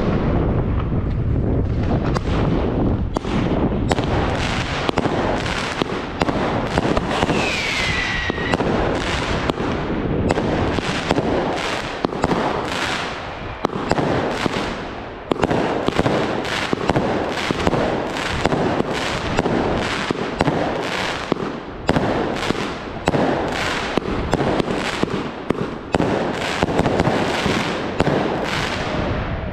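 A firework battery (cake) firing shot after shot in quick succession, each a sharp bang or crackling burst. A short falling whistle sounds about eight seconds in.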